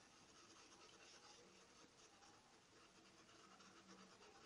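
Faint, rapid scratching of a paintbrush scrubbed in small circles over a fabric towel, blending fabric paint.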